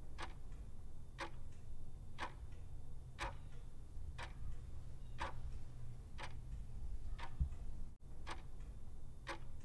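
Clock-ticking sound effect used as a quiz countdown timer, about one tick a second over a low steady hum.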